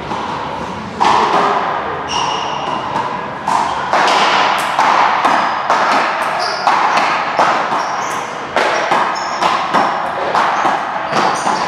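A rally of ball hits and bounces, a sharp knock every half second or so, with sneakers squeaking on a hard court floor, echoing in a large hall.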